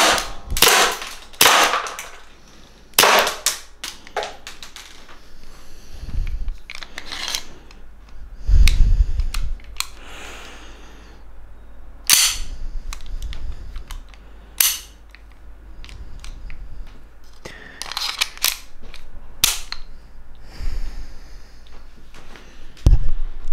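1911-style airsoft pistol firing single shots, about a dozen sharp cracks at irregular intervals in a small room, with a dull low thump or two between them.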